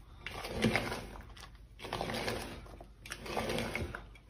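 Spatula folding chopped fruit into whipped cream in a bowl: about three slow strokes of scraping and squishing against the bowl.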